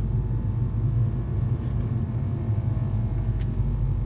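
Cabin noise of a 2012 VW Golf GTI on the move: a steady low drone with a vibrating noise from the rear of the car, a fault the owner cannot place.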